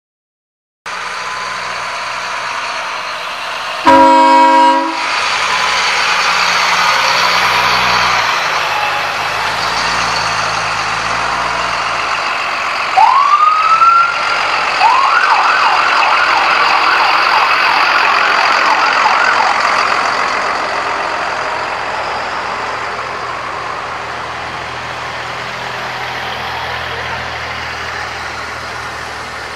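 Farm tractor engines running as a parade of tractors passes, with a loud horn blast about four seconds in. Around the middle a siren winds up, then yelps rapidly for about four seconds.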